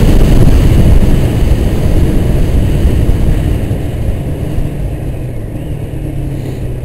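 Heavy wind noise buffeting a helmet-mounted camera's microphone on a moving Honda motorcycle, with the engine running underneath. The rush is loudest at first and eases off steadily, and the engine's steady low note comes through more clearly in the second half.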